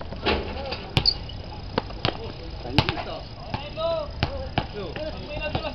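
Basketball bouncing on a hard outdoor court: sharp, irregular thuds about once a second, with brief faint calls from players.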